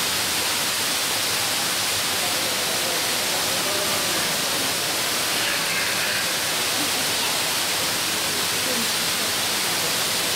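Steady, even rushing noise with no breaks or changes, with faint voices in the background around the middle.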